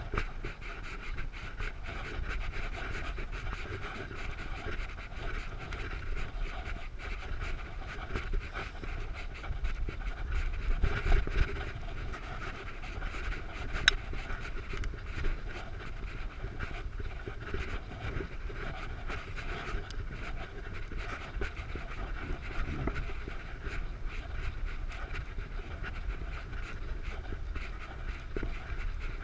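A cyclist breathing hard while pedalling, over a steady low rumble of wind on the microphone and the bike moving along the road.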